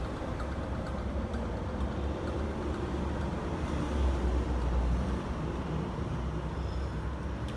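Steady low background rumble, swelling a little about four seconds in.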